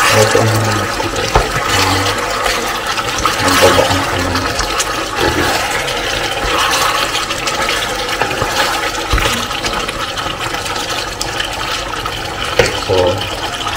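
Pork adobo sizzling and bubbling in its sauce in a nonstick pot, a steady hiss, while a wooden spatula stirs the meat with scattered light knocks against the pan.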